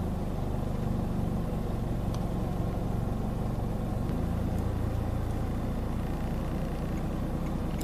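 A motor vehicle's engine running steadily with a low hum, its pitch shifting slightly about four seconds in.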